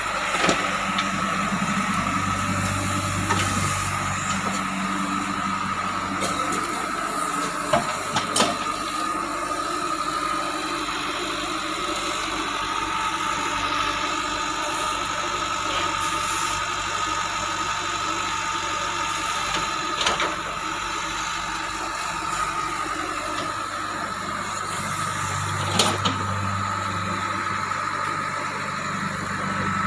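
JCB 3DX backhoe loader's diesel engine running as it works, its note rising under load a couple of seconds in and again near the end, with a steady high whine. A few sharp knocks come through.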